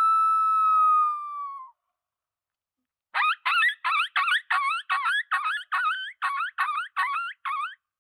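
Dead End Game Calls Road Rage Howler, a three-reed latex coyote mouth call, blown to imitate a coyote: the tail of a long held howl that sags slightly in pitch and stops, then after a short silence a fast run of short, wavering yips, about three a second.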